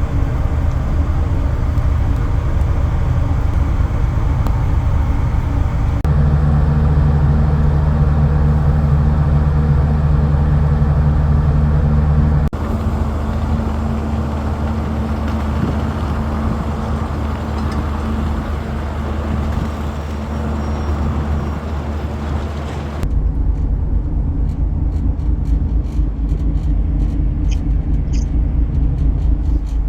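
Steady low drone of a ship's engines, with held low tones under a rushing noise. The sound changes abruptly about six, twelve and twenty-three seconds in, the drone getting stronger and then thinner.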